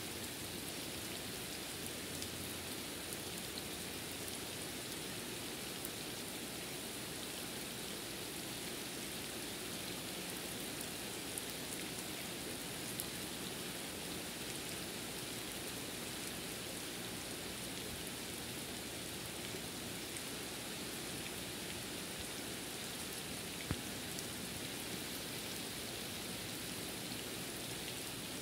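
Steady rain falling, with a few sharper single drop ticks here and there.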